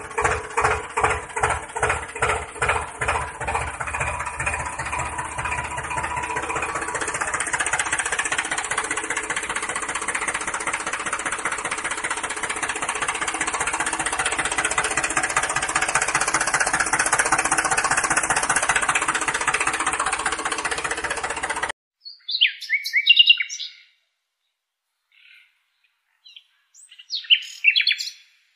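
Tractor-like engine sound. It putters at about four to five beats a second, then quickens and blurs into a steady run, and cuts off suddenly a few seconds before the end. A few short chirps follow.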